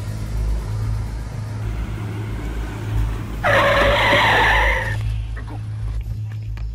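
Car tyres screeching for about a second and a half as the car brakes to a stop, starting about halfway through, over a steady low hum.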